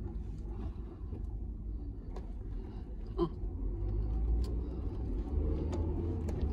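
Road noise inside a moving car's cabin: a steady low rumble of engine and tyres that grows louder about four seconds in, with a few faint clicks.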